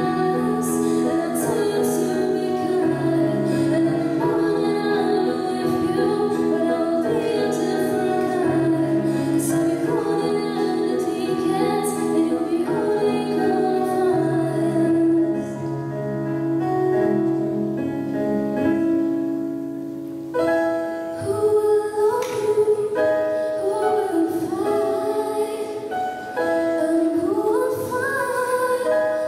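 A young woman singing solo into a microphone over instrumental accompaniment, with long held notes. About two-thirds of the way through, the low accompaniment drops away and the music thins.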